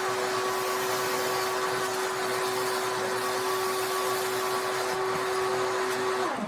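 High-speed electric motor running steadily at one pitch, then switched off near the end, its pitch dropping as it spins down.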